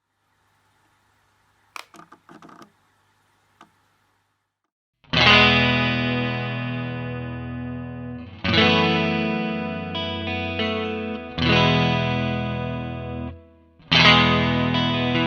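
Fender Stratocaster electric guitar played through a MOOER GE200 multi-effects unit on its "SWEETY" preset. After about five seconds of near silence with a few faint clicks, four chords are struck about three seconds apart, each left to ring and fade.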